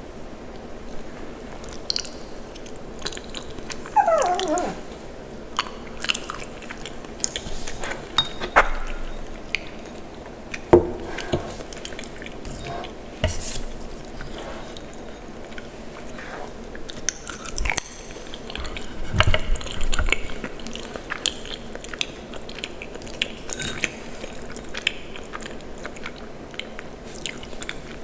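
Close-miked eating of cheesy macaroni and cheese: irregular chewing and biting with wet mouth clicks and squishes. About four seconds in there is a short squeal that falls in pitch.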